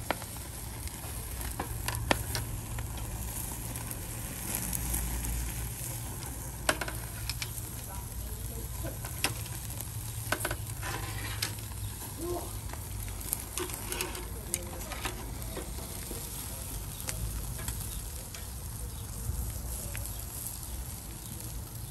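Milkfish sizzling on a charcoal grill, with a steady hiss and scattered sharp crackles and pops. Its fat drips onto the hot coals and flares up, scorching the fish.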